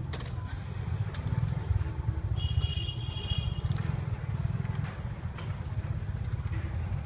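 Street-market background: a steady low rumble of motorbike traffic, with a brief high tone lasting about a second, about two and a half seconds in, and a few small clicks.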